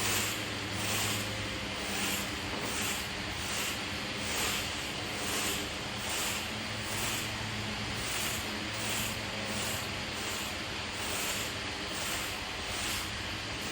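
Dry leaves being scraped into piles, a scratchy hiss in a quick regular rhythm of about two strokes a second, over a steady low hum.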